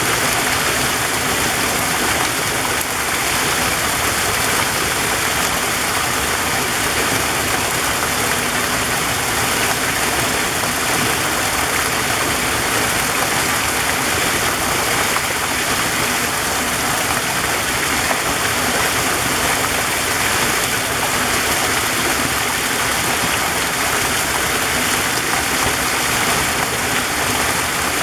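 Waterfall, a steady unbroken rush of falling water.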